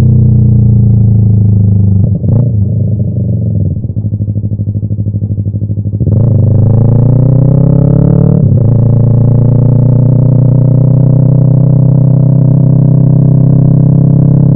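Yamaha YZF-R3 parallel-twin engine through an M4 aftermarket exhaust, heard onboard while riding. About two seconds in the revs drop and the engine runs quieter on a closed throttle with a rapid pulsing. Around six seconds in the revs climb again, there is a gear change just past eight seconds, and the engine then holds a steady note.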